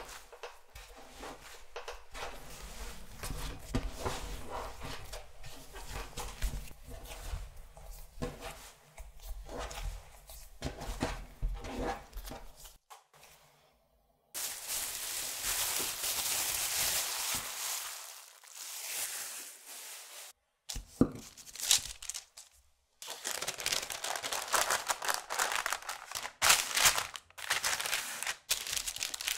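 Hands kneading a shaggy bread dough on a work surface, with soft squishing, rubbing and dull thuds as it is pressed and folded. After a brief gap comes a steady hiss, then, near the end, a sheet wrapped around a slab of butter crinkling as it is folded and handled.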